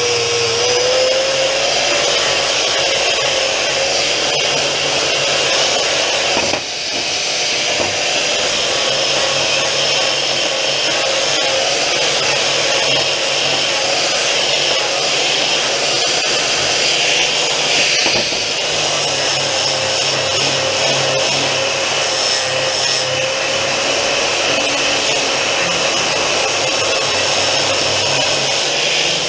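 Handheld angle grinder running steadily, its abrasive disc grinding the edges of steel angle and channel stock, with a constant motor whine over the hiss of the disc on metal. The sound dips briefly about seven seconds in, then carries on.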